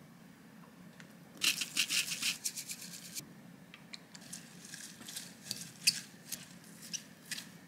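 Seasonings shaken out onto cut garlic chives in a glass measuring jug, a rapid rattling patter lasting about two seconds, then the chives tossed with a utensil, with scattered sharp clicks of it against the glass, the loudest about six seconds in.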